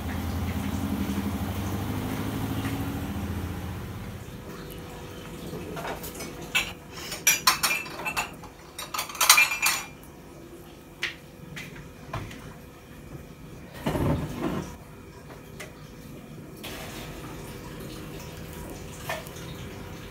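A few seconds of running water, then kitchenware clattering as it is handled at a dish rack: a cluster of sharp clinks and knocks of plates, pots and cutlery, followed by scattered lighter knocks and one dull thump.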